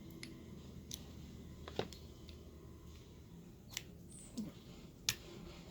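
Light metallic clicks and taps from a padlock and small picking tools being handled, about five separate clicks, with a brief faint squeak in the second half.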